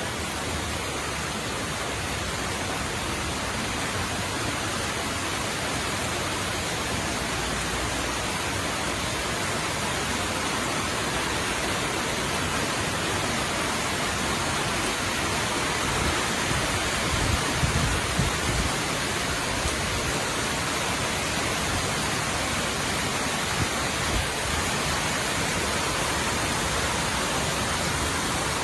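Steady heavy rain falling, a dense even hiss, with a few soft low thumps in the middle.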